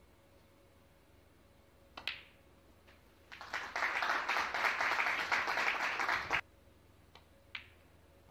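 Snooker balls clicking as the cue ball is struck with a sharp click. About a second and a half later an audience applauds for about three seconds, and the applause stops suddenly. A couple of faint ball clicks come near the end.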